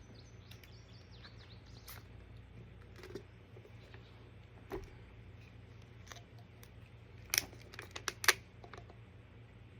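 Light clicks and taps of plastic being handled, scattered and sparse, with a quick run of sharper clicks about seven to eight seconds in, over a faint steady hum.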